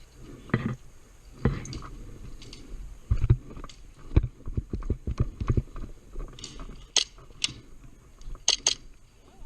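Irregular knocks and thumps, a quick run of them from about three to five and a half seconds in, then four sharp clicks in the last few seconds.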